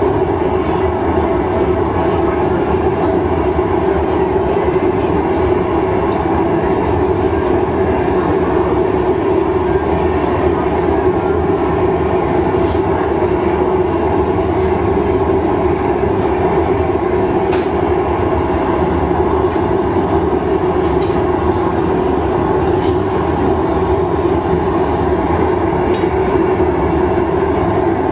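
Gas-fired glassblowing furnace burners running with a steady, unbroken drone. A few faint light clicks come through it now and then.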